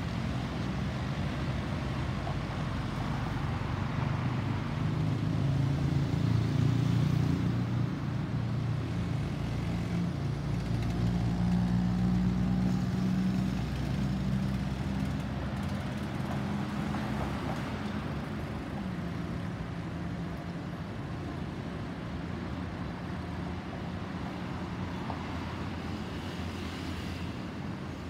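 Boeing 737-800's CFM56-7B turbofan engines rumbling as the jet passes over. The sound is loudest about a quarter to halfway through, then fades slowly as the aircraft moves away.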